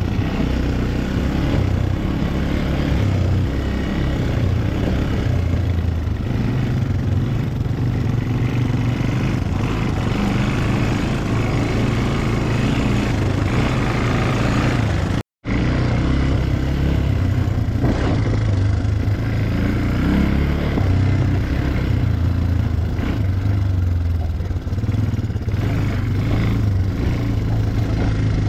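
ATV engine running as the four-wheeler is ridden, at a steady level without big revs. The sound cuts out for an instant about halfway through.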